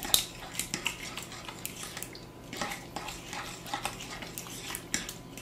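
Stirring a wet mixture of canned salmon, milk and egg in a ceramic mixing bowl: irregular clinks and scrapes against the bowl, about two a second, the sharpest one just after the start.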